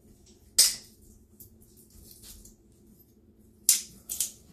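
Kitchen utensils being handled: a sharp clatter about half a second in, then quiet, then another clatter near the end followed by a few lighter clicks.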